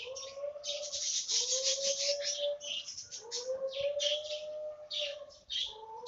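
Caged collared doves cooing: long, steady, drawn-out coos, four in a row with short breaks, over rapid high-pitched chirping from other birds.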